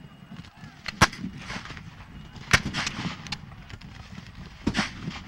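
Three black-powder musket shots with blank charges, spread out over about four seconds, each a sharp crack with a short echo behind it.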